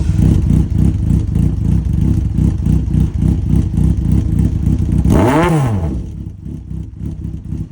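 Honda CBX550F's air-cooled inline-four idling with an even, lumpy beat through a Friends Endurance aftermarket exhaust. About five seconds in, one quick throttle blip sends the revs up and straight back down to idle.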